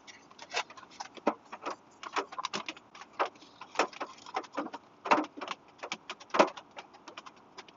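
A long spoon scraping and stirring inside a freeze-dried meal pouch, with the pouch crinkling: a run of irregular sharp crackles and clicks, a few louder ones past the middle.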